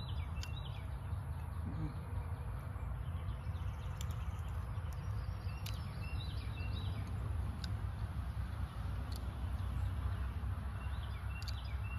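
Outdoor ambience: a steady low rumble under a light hiss, with birds chirping in short calls a few times and a few brief sharp clicks.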